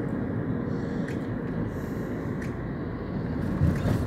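Steady road and tyre noise of a moving car, with a brief louder swell near the end.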